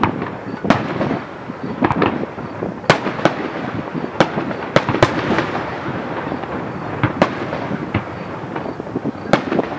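Aerial fireworks display: a string of sharp bangs from bursting shells, irregularly spaced about one or two a second, over a continuous din of crackle and rumble.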